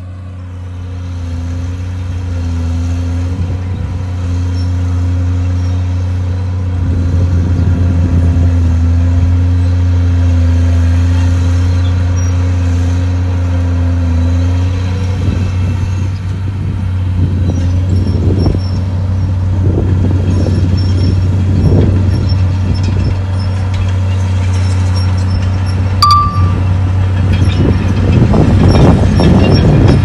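Heavy diesel construction machinery running: a steady low engine drone that grows louder, then comes in repeated rougher surges as the engine works harder in the second half. A single sharp click with a brief ring sounds a few seconds before the end.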